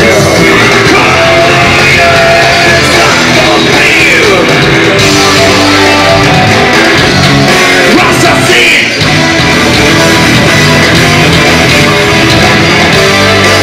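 Rock band playing live at full volume, with drum kit and cymbals driving a dense, continuous wall of sound.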